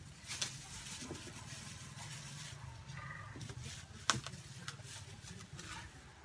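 Plastic-covered hands peeling the skin off taro stalks: scattered rustles and short crisp snaps, the sharpest about four seconds in, over a steady low hum.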